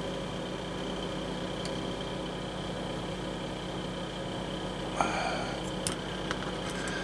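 A steady low mechanical hum, like a fan or other small machine running, with a brief rustle about five seconds in and a sharp click about a second later.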